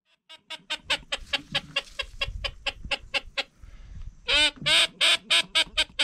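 Duck call blown in a fast, even run of short notes, about five a second, calling to blue-winged teal. About four and a half seconds in, two louder, longer notes break the run before the quick notes pick up again.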